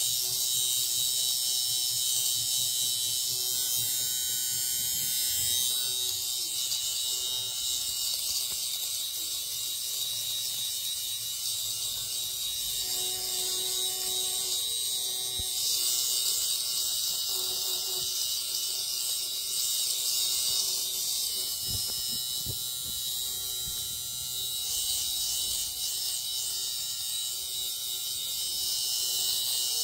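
Ardesto LSH-Y1 electric fabric shaver running with a steady high whir as its spinning blades are moved over knit fabric, shaving off pills.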